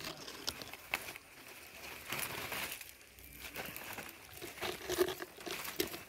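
Leaves and stems of a ridge gourd vine rustling and crackling as it is pulled and handled to pick a gourd, with scattered sharp clicks.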